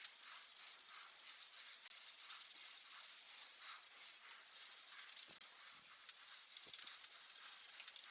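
Faint scratchy hiss of an SOS steel-wool soap pad scrubbing surface rust off a bicycle's metal chain guard, wet with soapy water, in quick repeated back-and-forth strokes.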